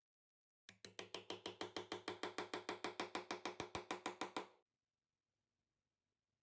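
Small screwdriver working the scissors' pivot screw: rapid, even clicking, about eight a second, starting under a second in and stopping abruptly after about four seconds.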